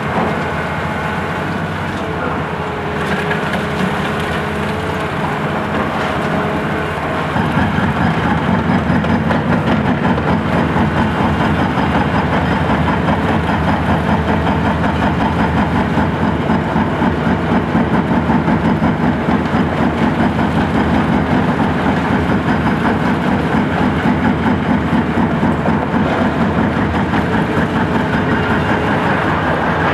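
A high-reach demolition excavator (Etec 888) working under load, its diesel engine and hydraulics running steadily. About seven seconds in the sound gets louder and takes on a fast, even pulsing clatter that carries on to the end.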